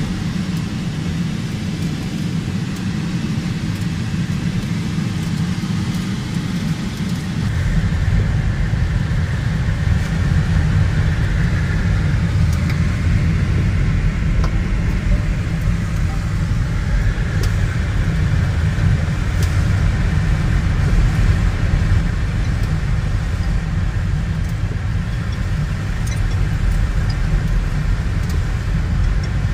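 Steady rush of airflow past a glider's canopy in flight, heard inside the cockpit as a low rumble, getting louder about seven seconds in.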